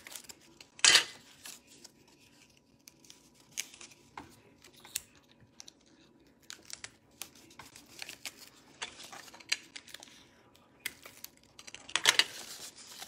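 Adhesive tape pulled off the roll and torn, with cardboard triangles scraping and tapping as they are handled and taped together. There is a short loud tear about a second in and a longer one near the end, with light scratchy handling noises between.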